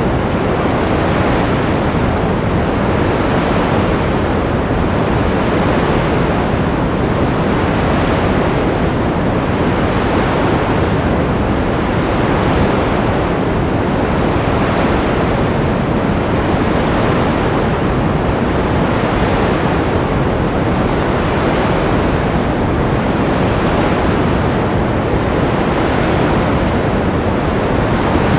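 Ocean waves washing continuously: a steady loud rush of surf that swells and eases gently about every two seconds, with no single crash standing out.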